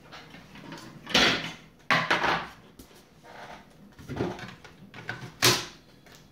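A circuit board being handled and seated into an instrument cluster's plastic housing: a series of separate clunks and scrapes, the loudest near the end.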